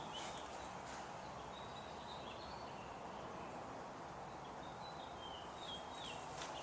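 Faint bird chirps, short high notes, some sliding down in pitch, over a steady background hiss.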